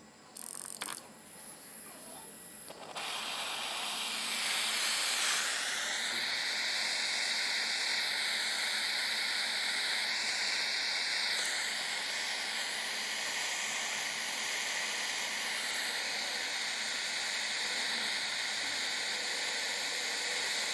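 Jeweller's gas torch flame hissing steadily as it heats a twisted-wire ring blank to flow solder at the joint. The hiss comes in about three seconds in and is full by about four seconds.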